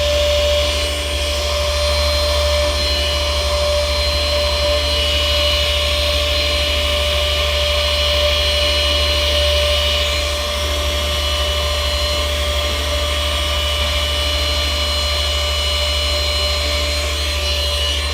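Small handheld vacuum cleaner running steadily with a high-pitched motor whine, vacuuming loose static grass off a model railway scene.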